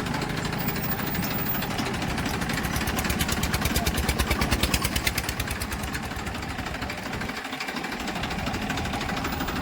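Heavy diesel engine running under load. It speeds up and grows louder about three seconds in, then eases off after about five seconds.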